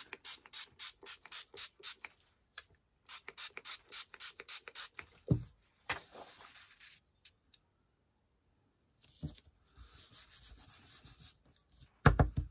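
Quick hand-rubbing strokes over paper pressed onto inked lace fabric, about four or five a second in two runs, to transfer the lace pattern like a frottage; a single thump about five seconds in, then softer rubbing.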